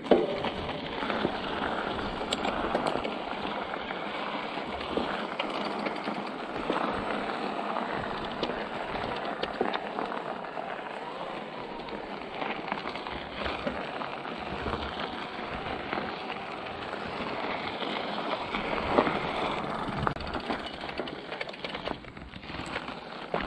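Mountain bike tyres rolling over gravel: a steady crunching hiss with many small clicks and a few harder knocks from the bike rattling over the stones.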